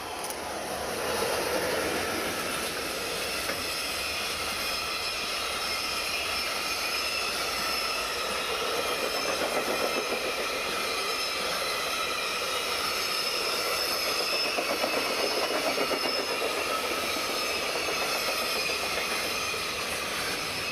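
EF210 electric freight locomotive passing close by, then a long string of container wagons rolling past: steady wheel-on-rail rumble with a few steady high ringing tones. It swells in the first couple of seconds as the locomotive goes by and starts dying away at the very end as the last wagon passes.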